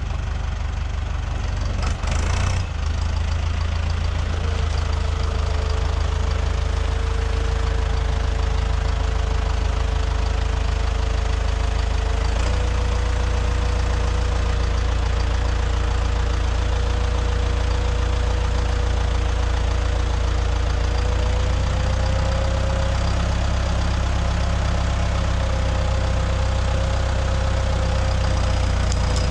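Fendt tractor's diesel engine running steadily, with a brief clatter about two seconds in. From about four seconds in a steady whine joins it as the Stoll front loader's hydraulics work the loaded firewood bundler.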